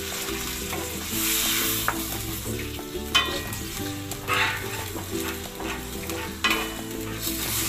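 Raw chicken necks sizzling in hot oil and garlic in a wok, stirred and turned with a wooden spatula, with a few scraping strokes of the spatula against the pan.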